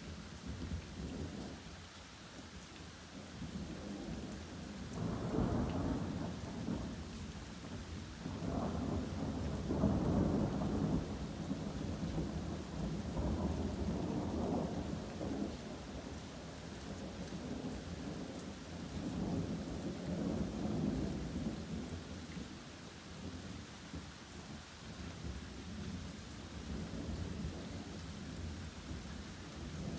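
Steady rain falling, with thunder rumbling almost without a break, swelling and fading in several long rolls.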